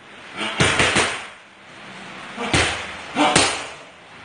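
Boxing gloves smacking against focus mitts in quick combinations. Three fast hits come just after half a second in, then single hits at about two and a half and three and a quarter seconds.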